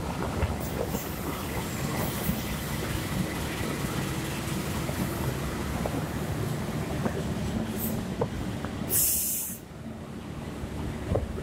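Long-distance passenger train coaches rolling past along the platform: a steady rumble of steel wheels on rail with scattered clicks. About nine seconds in there is a short loud hiss, then the sound drops as the last coach draws away.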